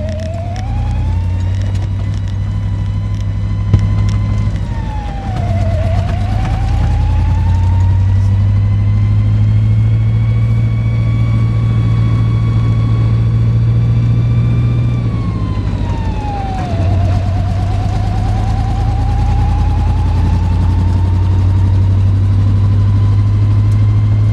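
Vehicle siren wailing in long, slow cycles over a steady low engine hum: the pitch climbs over several seconds, holds high, then drops back down twice before climbing again.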